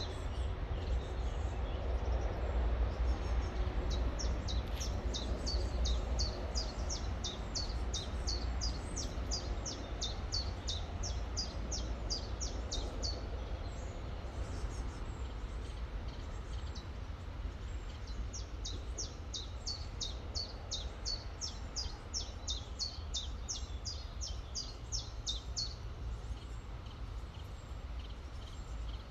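A songbird singing long runs of short, high, falling notes at about three a second, pausing briefly about halfway through before another run, over the steady rush of a river.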